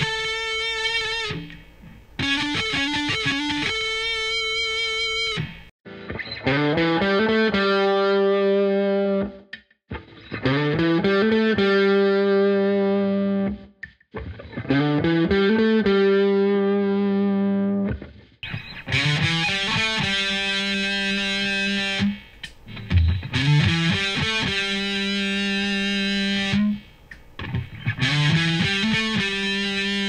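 Harley Benton SC-200 electric guitar on its bridge pickup, played through heavy distortion: grunge-style chord riffs, each phrase sliding up the neck into held, ringing chords, with short gaps between phrases. The tone alternates between a miked Line 6 75W amp and a duller GarageBand 'Double Driven' amp simulation in the middle stretch.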